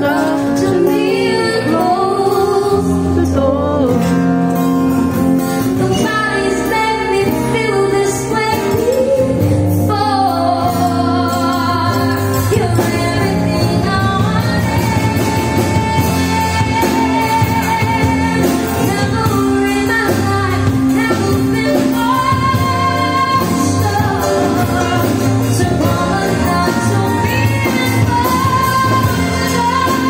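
Live band playing a song: a woman sings lead over guitars, bass and drums.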